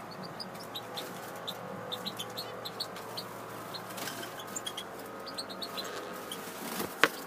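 Small aviary finches chirping: many short, high cheeps scattered throughout, with one sharp click about seven seconds in.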